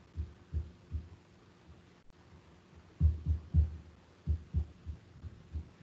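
Irregular low, muffled thumps on a call microphone, a few a second, loudest in a cluster about three seconds in, over a faint steady hum.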